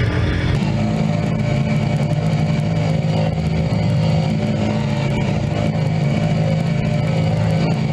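Zero-turn riding mower's engine running steadily as the mower drives off. Background guitar music cuts out about half a second in.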